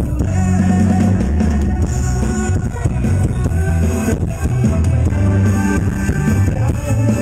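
A live band playing through a big outdoor concert sound system, with heavy bass, recorded live on a mobile phone's microphone.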